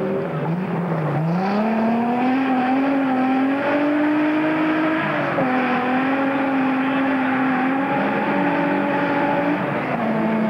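Alfa Romeo 75 rally car's engine pulling hard on a dirt rally stage. The revs climb in the first couple of seconds and are then held high, with the note stepping down twice: about five seconds in and again near the end.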